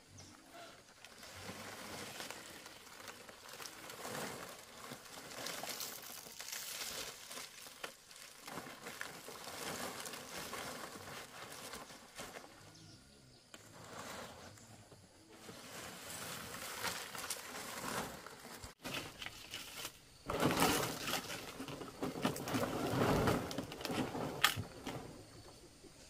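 Palm leaves rustling and crinkling as they are handled and laid out on a bamboo frame, louder for the last few seconds.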